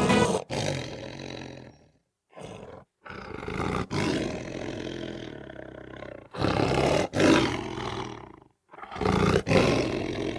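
Lion roaring, a series of four or five roars, each starting loud and fading away, with short gaps between them.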